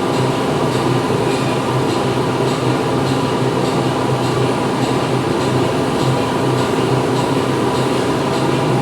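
Factory machinery running steadily: a dense mechanical din with a low hum and a faint, evenly repeating ticking.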